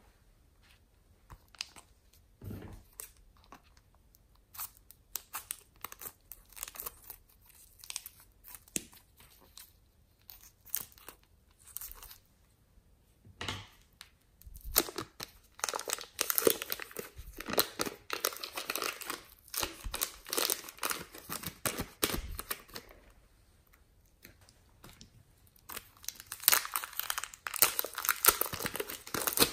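Soft foam clay being pulled apart and pressed by hand, giving small sticky clicks and crackles, with two longer stretches of dense crinkling; the second comes as a small plastic bag of clay is opened near the end.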